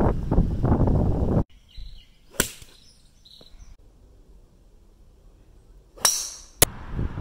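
Wind buffeting the microphone, cut off suddenly about a second and a half in. About six seconds in comes the sharp crack of a driver striking a teed golf ball, with a brief ring after it and a second click about half a second later.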